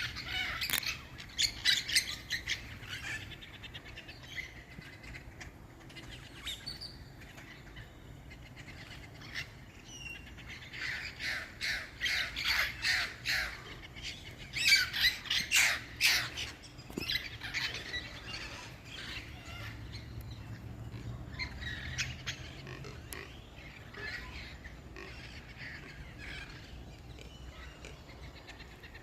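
Wild green parrots squawking and screeching, squabbling in the trees. Their harsh calls come in fast runs: one burst at the start, a louder stretch in the middle, then softer calls.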